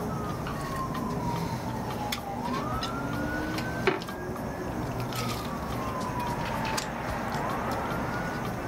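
Emergency vehicle siren wailing over a low background of traffic: a single tone slides slowly down, then sweeps quickly back up, about every five seconds. A sharp click about four seconds in.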